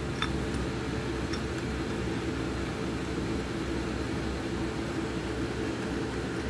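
Steady low machine hum, with a few faint light metallic clicks in the first second and a half as bolts are turned in by hand on a transfer case's clocking ring.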